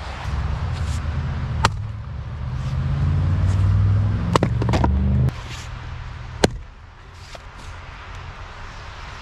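Wood knocks as an ash round is set on the chopping block, then one sharp strike about six and a half seconds in as a Collins splitting maul bites into the top of the round and sticks. A low engine rumble runs under the first five seconds, swells, then cuts off abruptly.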